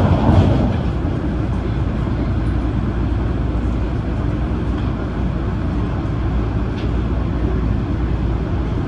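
Adtranz-CAF electric multiple unit train running, a steady low rumble of wheels and traction gear with a brief swell about half a second in and a few faint clicks.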